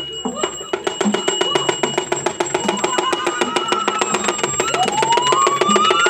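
Balinese gamelan playing: fast, even metallic strikes, about eight a second, over a steady pitched layer. A high, voice-like line rises and falls over it in the second half and is loudest near the end.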